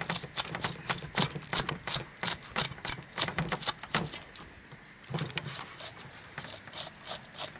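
Serrated saw spine of an S16 knife being scraped against the scales of a partly frozen fish on a wooden board. Each quick stroke gives a crisp rasping click, about five a second, and the strokes slacken briefly about four seconds in.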